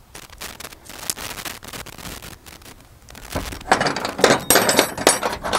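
Small steel hardware clicking and clinking as it is handled: nuts going onto a wire rope clip's U-bolt, with the steel cable and its thimble knocking against the clip. The handling is light at first and grows louder and busier about three and a half seconds in.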